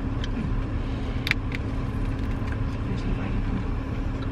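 Steady low hum of a parked car running, heard inside the cabin, with one sharp click about a second in and a few faint ticks.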